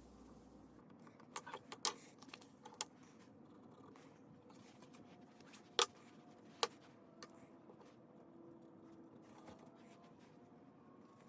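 Scattered light clicks and taps of small hard objects being handled, a quick cluster in the first few seconds and then a few single clicks, over a faint quiet background.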